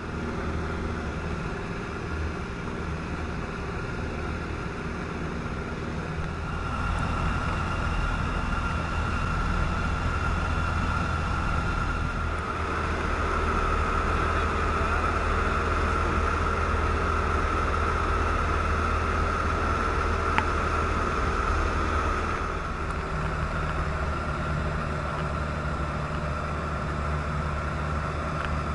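Robin DR400 light aircraft's piston engine and propeller droning steadily in cruise, heard inside the cockpit along with airflow noise. The drone gets a little louder about seven seconds in and eases slightly near the end.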